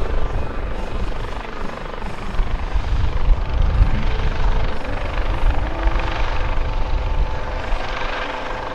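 US Coast Guard MH-65 Dolphin, a twin-turbine helicopter with a fan-in-fin tail rotor, hovering. Its rotor and engine noise runs steadily, with a thin steady whine above the low rumble.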